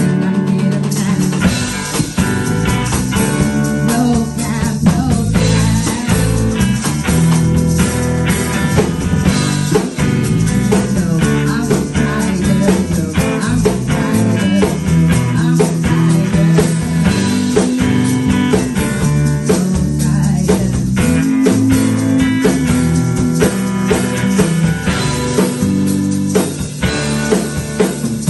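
Live band playing a song: acoustic guitar, electric bass guitar and drum kit.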